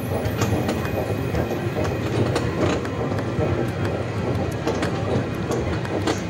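Kiddie train ride running, a steady rumble with many small clicks and rattles from its cars.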